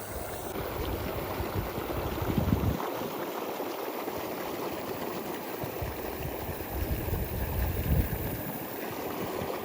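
Water rushing steadily out of a flooded rice field through the gap where the drain boards have been pulled, as the field is drained.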